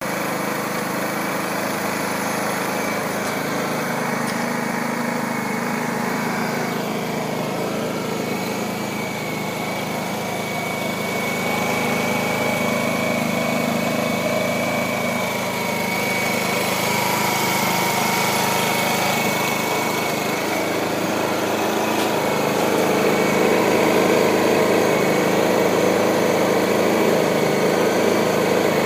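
Pro User 2000 inverter generator's small petrol engine running steadily, getting slightly louder in two small steps, about a third and two thirds of the way through.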